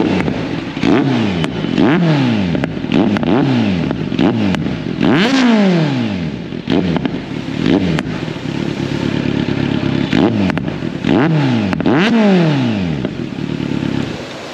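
Kawasaki Z900's inline-four engine, breathing through an Akrapovic slip-on exhaust, revved at standstill. There are about a dozen quick throttle blips, each jumping up in pitch and falling back, with the largest about five seconds in and again near twelve seconds. Sharp pops come in between the blips.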